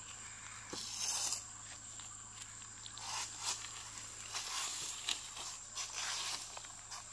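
Dry banana stalk sheaths rustling and crackling as they are pulled and cut with a knife, in short scrapes and crackles, loudest about a second in.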